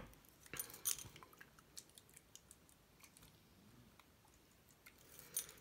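Faint scattered clicks and taps from handling a small plastic alcohol-ink bottle and its screw cap, the cap unscrewed and set down on newspaper. The sharpest click comes right at the start, a few more follow about half a second to a second in, and two small ticks come near the end.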